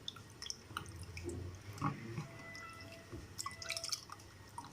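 Water dripping and small splashes as dried figs are rinsed by hand one at a time, with scattered light drips and ticks.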